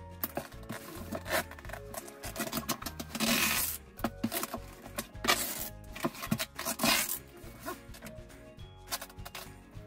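Brown packing tape pulled off a hand-held roll in several rasping strips and pressed onto a cardboard box, the longest pull a little past three seconds in, over background music.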